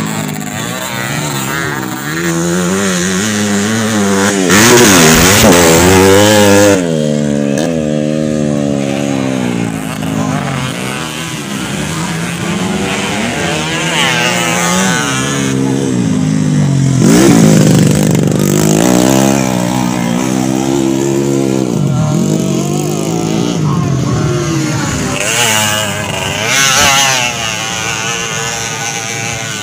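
Motocross dirt bikes revving hard and passing, their engine pitch rising and falling again and again as riders accelerate and shift, often several engines at once. About five seconds in comes a loud rushing noise lasting about two seconds.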